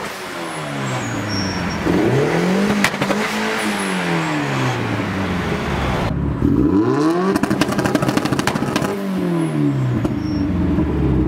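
Turbocharged Mazda Miata four-cylinder engine revved in a few blips from idle, the pitch rising and falling with each rev, with bursts of clicking crackle. In the first half it runs through its old exhaust, stock piping into a Jackson Racing muffler. About halfway through it runs through a new 2.5-inch pipe to an ISR muffler, which gives the engine the flow it needs.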